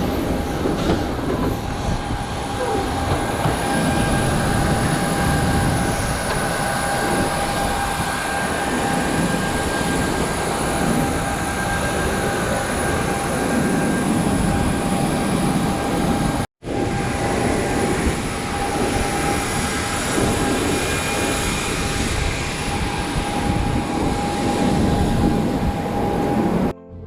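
Vehicle running noise: a steady low rumble with a constant high whine over it, broken by a brief dropout about sixteen seconds in.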